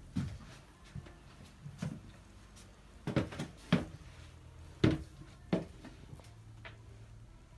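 A series of irregular knocks and bumps, about eight in all and loudest around the middle, over a faint steady low hum.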